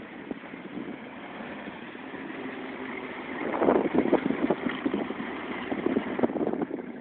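Dodge Durango on home-built tracks driving through snow, its engine and tracks growing louder as it approaches, then passing close by from about three and a half seconds in with a loud, rough, irregular churning.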